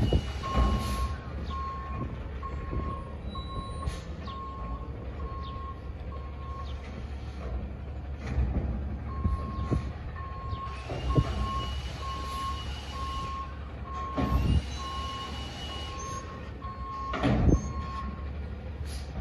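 Backup alarm of a Peterbilt Heil front-loader garbage truck beeping steadily about one and a half times a second, in two runs with a short pause between, over the low running of its engine as it maneuvers at a dumpster. Several sharp, loud knocks land among the beeps.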